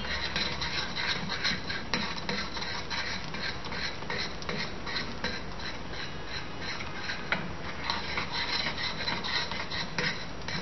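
Metal teaspoon scraping and stirring around a small stainless steel saucepan in a steady rhythm of repeated strokes, working freeze-dried coffee into sugar syrup at hard-crack temperature so it dissolves.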